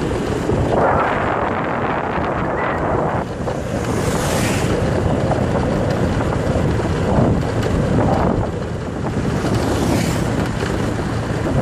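Wind buffeting the microphone during a ride on a motor scooter, rising and falling in gusts, with the scooter's engine and road noise as a steady rumble underneath.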